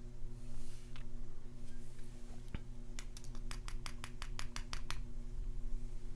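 A rapid run of about a dozen light clicks in two seconds, with a single click just before it, from tweezers working tiny springs and pins out of a padlock's pin chambers. A steady low hum runs underneath.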